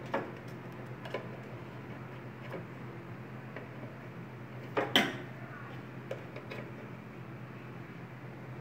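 Scattered light clicks and taps from a wire and test lead being handled against a stainless-steel fryer body, the loudest a close double click about five seconds in, over a steady low hum.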